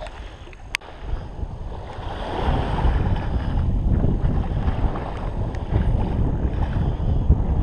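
Wind gusting on the microphone, a rough low rumble that grows stronger about two seconds in. A single sharp click comes just under a second in.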